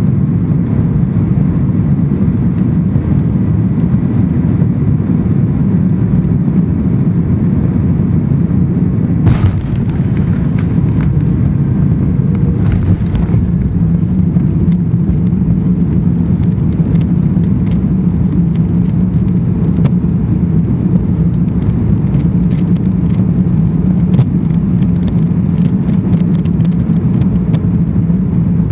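Airbus A330 cabin noise from a seat over the wing during the landing roll: a loud, steady rumble of engines and wheels on the runway, with many light rattles of cabin fittings. A brief rushing surge comes about nine seconds in and again around thirteen seconds.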